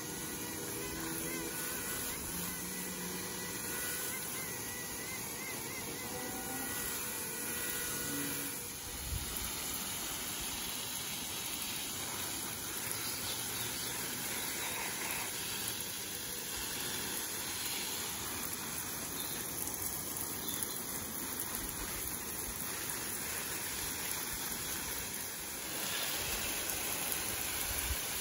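Water spraying from a garden hose spray nozzle onto shrubs and flower beds, a steady hiss.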